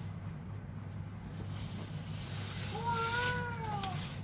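A cat meows once near the end, a single drawn-out call that rises and then falls in pitch, over the rustle of tightly wrapped packaging being torn open and a steady low hum.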